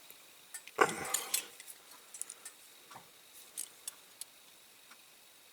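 Small wheel puller being worked on a die-cast toy car's axle: scattered faint metallic clicks and ticks as the tool is handled and turned, with a slightly louder brief handling sound about a second in.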